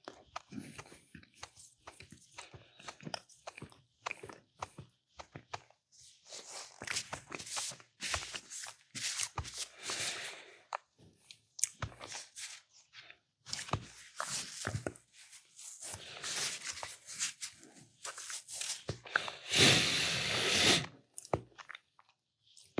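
Plastic food packaging being handled: irregular crinkling and crackling with short tearing rustles, the longest and loudest rustle about twenty seconds in.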